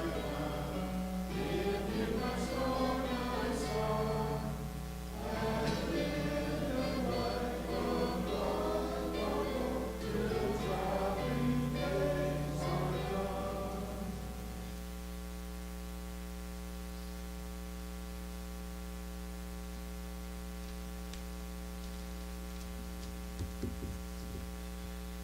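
A choir singing, which stops about fourteen seconds in, leaving a steady electrical mains hum with a few faint knocks near the end.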